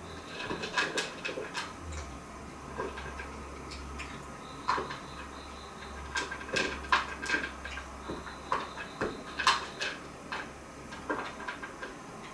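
Cat eating from a ceramic bowl: irregular chewing and crunching with sharp clicks of food and teeth against the bowl, several a second.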